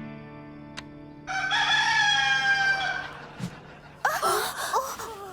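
A rooster crows once, one long call of just under two seconds, as the last notes of acoustic guitar music die away.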